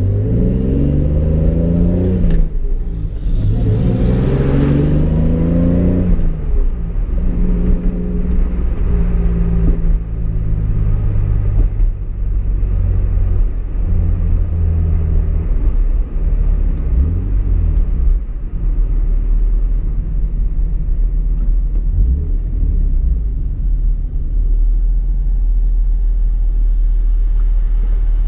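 Mk4 Toyota Supra's 3.0-litre straight-six heard from inside the cabin, pulling up through the gears: the revs climb, drop at a shift a couple of seconds in, climb again and drop at another shift about six seconds in, then settle into a steady lower drone for the rest.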